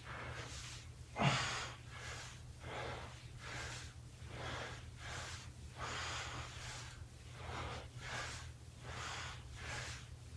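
A man breathing hard and rhythmically while doing squats: quick, even breaths, one to two a second, the loudest a little over a second in. A steady low hum sits underneath.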